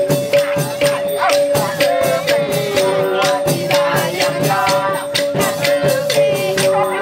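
Dance music with a quick, even rattle beat under a held drone note and a wavering melody.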